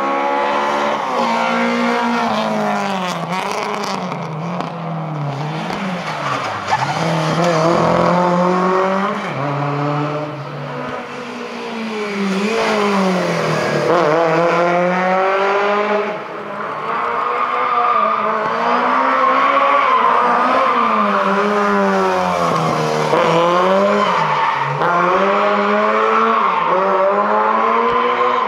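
Lada race car engines revving hard, the pitch climbing and then dropping again and again with gear changes and lifts, with tyres squealing as a car slides.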